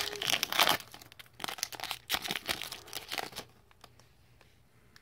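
Crinkling and tearing of a Topps baseball card pack's wrapper as it is ripped open by hand, a dense run of crackles that stops about three and a half seconds in.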